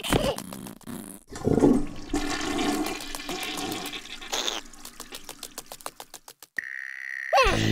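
Cartoon sound effects: a rushing noise lasting about three seconds, then a steady high tone, with music starting near the end.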